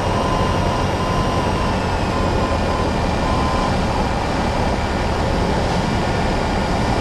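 Cessna 172N's four-cylinder Lycoming engine and propeller droning steadily in cruise, with wind noise, heard in the cabin. A faint steady high tone in the background stops a little past halfway.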